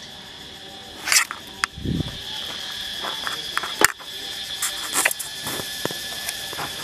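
Insects chirring steadily in a high, even drone, with scattered sharp clicks and knocks and a low thump about two seconds in.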